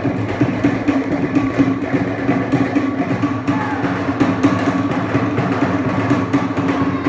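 Fast Polynesian drum music for the dancing: rapid, evenly driving drum beats, many to the second, over a steady low tone.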